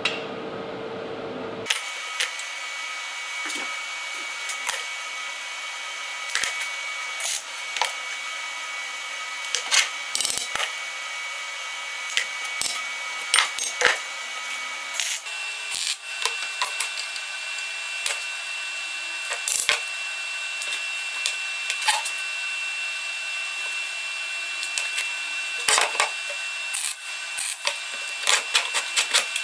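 Steel plates and hand tools clinking and knocking as they are handled, fitted and set down on a wooden workbench, in irregular sharp knocks. Behind them runs a steady high tone that steps up in pitch about halfway through.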